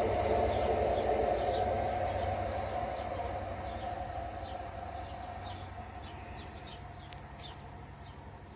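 Class 43 HST power car's diesel engine and the train's wheels on the rails, steadily fading away as the train draws into the distance. Birds chirp more and more clearly through the second half as the train noise falls.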